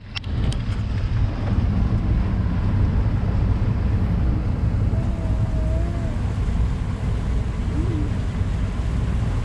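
Motorboat engine running steadily, a low rumble mixed with wind buffeting the microphone.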